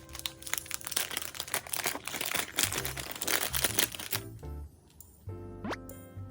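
Packaging crinkling and crackling as it is handled and unwrapped, over background music with a steady bass line; the crinkling stops about two-thirds of the way through, leaving the music.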